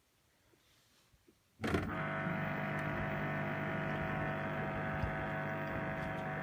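LG F1495KDS washing machine starting to buzz suddenly about a second and a half in: a loud, steady electrical buzz with a strong low hum that goes on without letting up. The owner has read that this buzz during the wash cycle is a fault in the recirculation pump.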